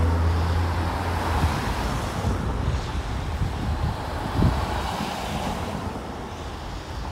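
City street traffic at an intersection. A vehicle engine's low hum is strong at first and fades within the first second or two, leaving steady traffic noise, with wind buffeting the microphone.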